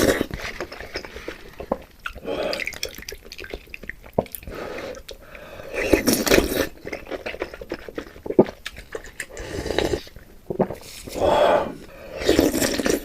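A person eating sour soup noodles close to the microphone: a string of slurps and wet mouth sounds a couple of seconds apart, with small clicks between them.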